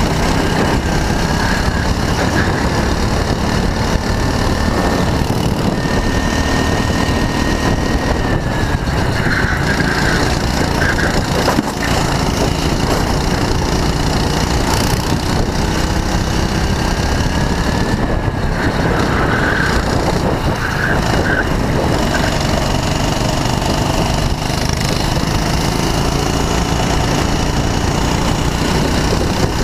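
Go-kart engine running hard under the driver, close to the microphone, its pitch climbing and then dropping several times as the kart accelerates and slows through the corners.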